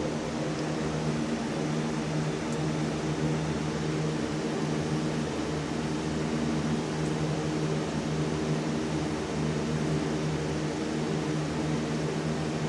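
A steady mechanical hum with an even hiss beneath it, unchanging throughout.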